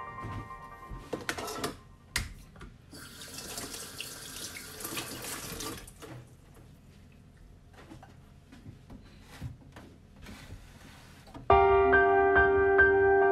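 Kitchen tap running into a sink for about three seconds, among light clicks and knocks of dishes and a plastic container being handled. About two seconds before the end, background music comes in and is the loudest sound.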